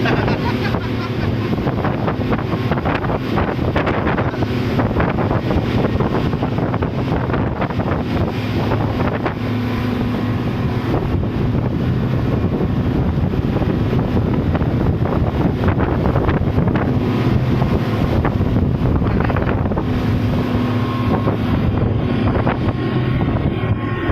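A boat's engine running steadily at constant speed, under heavy wind buffeting on the microphone.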